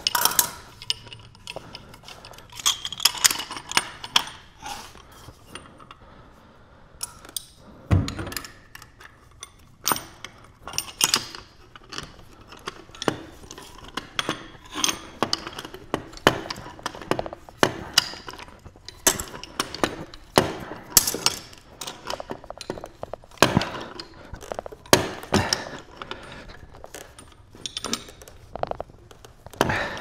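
Irregular metallic clicks, clinks and knocks of a furnace gas valve and threaded black-iron gas pipe fittings being handled and screwed together by hand, with an occasional heavier thunk as parts or tools are set down.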